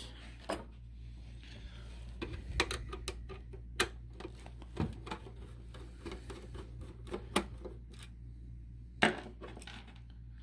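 Irregular small clicks and taps of a screwdriver working small screws out of the underside plate of an O gauge model boxcar and handling the parts, with sharper clicks about four seconds in and near the end, over a faint low hum.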